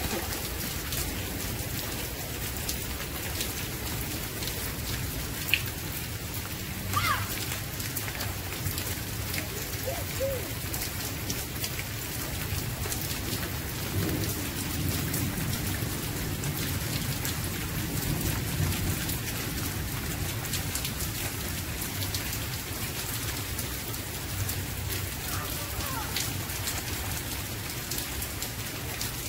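Steady rain falling on wet pavement, grass and parked cars, a dense patter of drops. A sharp tap comes about five seconds in, and a few brief high-pitched sounds rise over the rain now and then.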